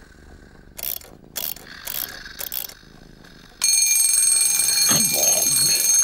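Four brief, noisy clatters, then about three and a half seconds in, a loud alarm-clock bell starts ringing continuously.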